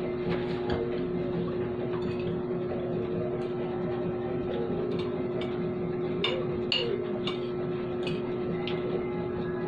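Eating by hand at a table: a few short clicks and smacks from mouth and plate, mostly between about five and eight seconds in, over a steady background hum.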